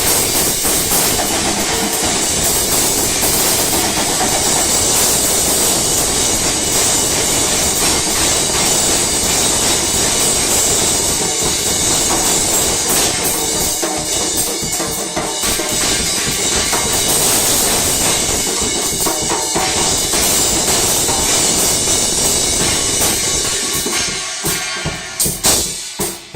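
Loud, dense music with drumming that fills the whole range of pitch; it breaks up and drops away just before the end.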